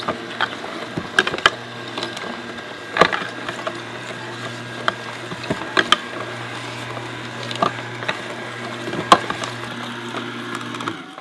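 Vertical slow juicer running, its motor humming steadily while the auger crushes beet and apple, with sharp irregular cracks and crunches. The hum cuts off suddenly near the end as the juicer is switched off.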